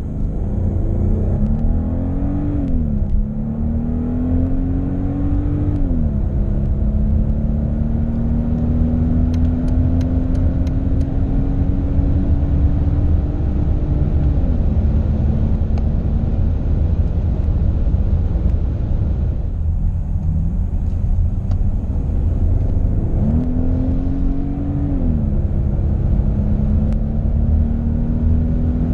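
Mercedes-AMG S65's twin-turbo M275 V12, heard from inside the cabin under hard acceleration. The engine note climbs and drops back at upshifts about two and six seconds in, then makes one long climb to over 200 km/h. It eases off for a few seconds, then pulls hard again through another upshift and keeps rising near the end.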